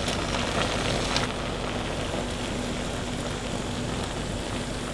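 A big enamel stockpot of crawfish-boil liquid at a hard boil on the stove: a steady rushing, bubbling noise with a faint hum under it. For about the first second, crawfish splash into the pot.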